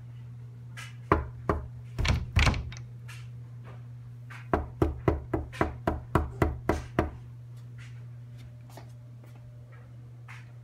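Knuckles knocking on a panelled interior door: a few scattered knocks in the first three seconds, then a quick run of about ten knocks at roughly four a second from about four and a half to seven seconds in. A steady low hum runs underneath.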